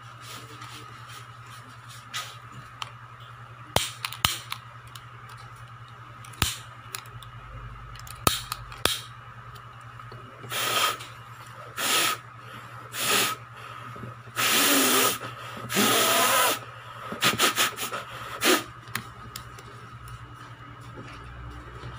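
Sharp clicks from a long-nosed utility lighter's igniter. Then a series of hard breaths blown through a three-ply surgical face mask at the lighter's flame, the two longest about a second each, followed by a few short puffs. A steady electrical hum runs underneath.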